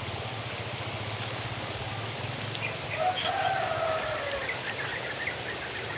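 A rooster crows once, starting about three seconds in, with a slightly falling call of about a second and a half, over the steady hiss of rain.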